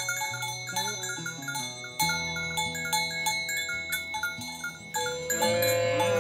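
Background music with held low notes under a repeating pattern of short bell-like notes.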